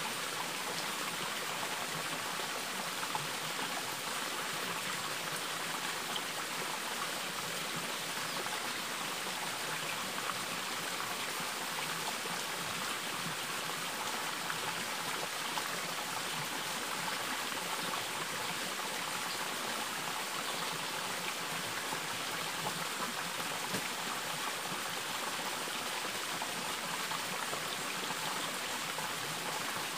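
Running water flowing over rocks, a steady even rush, with a few faint clicks here and there.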